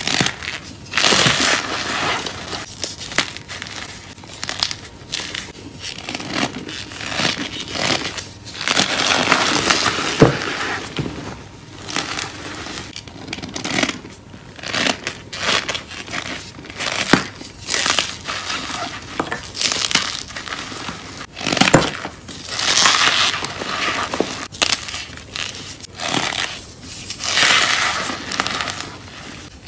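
Hands squeezing and crumbling soft blocks of gym chalk packed with cornstarch, in repeated crunchy bursts a second or two apart as the powdery blocks break apart.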